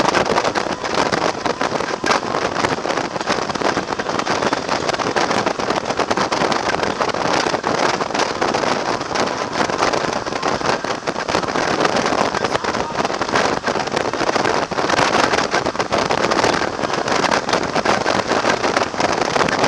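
Steady rush of wind over the microphone of a camera on a moving motorcycle at road speed, with road noise mixed in.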